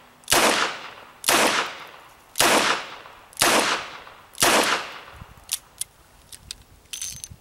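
Five double-action shots from a Smith & Wesson Model 10 revolver firing 158-grain .38 Special rounds, about one a second, each a sharp crack with a short fading tail. A few faint clicks follow near the end.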